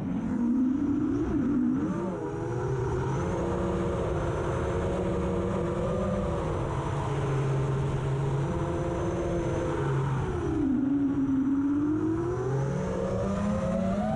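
FPV quadcopter's electric motors and propellers whining, the pitch rising and falling as the throttle changes, over low rumbling wind noise.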